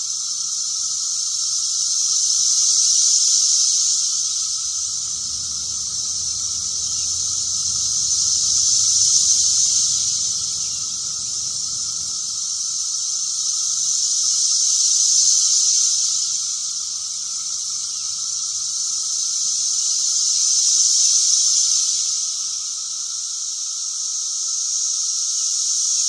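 Really loud chorus of Brood X periodical cicadas singing in the trees, a high shrill drone that swells and fades in slow waves about every six seconds, with a steadier lower hum beneath it.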